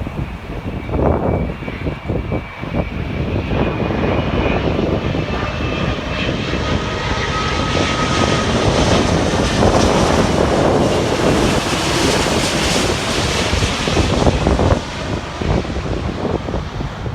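Arriving jet airliner passing close by, its engine noise swelling to a peak past the middle and then falling away, with a faint whine above it. Wind buffets the microphone near the start and again near the end.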